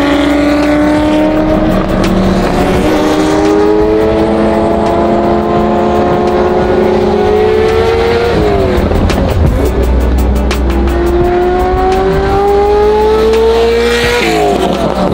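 Ferrari F40 twin-turbo V8 with a titanium exhaust pulling through the gears. The engine note climbs steadily, drops at an upshift about eight seconds in, climbs again and drops at another upshift near the end.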